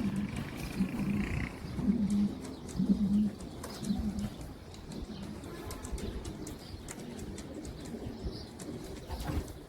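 King pigeons cooing: a run of low coos about once a second, strongest in the first four seconds and fainter after, with scattered light clicks.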